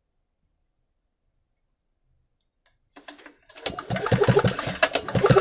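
Recoil starter cord of a small 1 kW petrol generator pulled, the engine turning over quickly without firing, cranked with its spark plug out to test for spark. The spark jumps only every other time. The cranking starts about three and a half seconds in after near silence.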